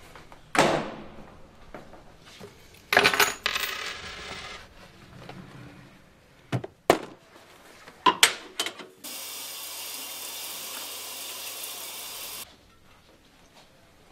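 Household handling sounds: a door shutting about half a second in, then small metal objects clattering onto a hard surface and rattling to a stop, a few sharp clicks, and a steady hiss for about three seconds that cuts off suddenly.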